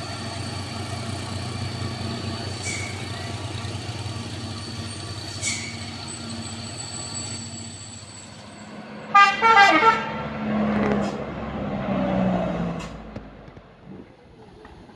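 Truck diesel engine running steadily, then about nine seconds in a truck's horn sounds loudly for about a second, its pitch dropping, followed by a lower engine tone that also falls away.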